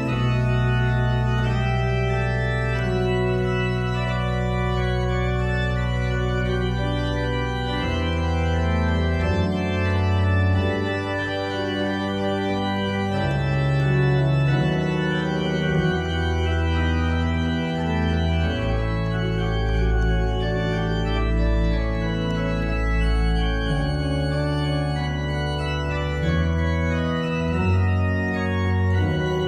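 Church organ played in slow sustained chords, the harmony changing every second or few seconds over deep bass notes each held for several seconds.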